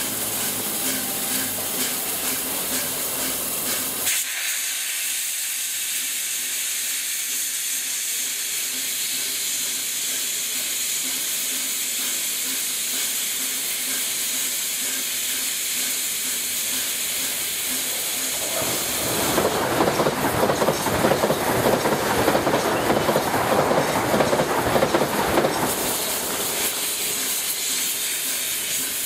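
LNER A4 Pacific steam locomotive standing still, with a steady high hiss of escaping steam. About two-thirds of the way through, a louder, rougher rush of steam blows for several seconds and then dies back to the hiss.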